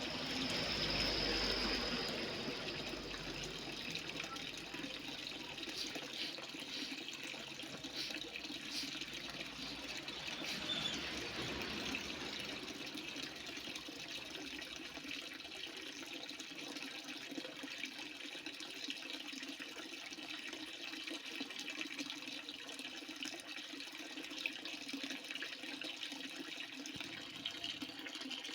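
Strong, steady flow of water pouring and splashing, a little louder in the first couple of seconds.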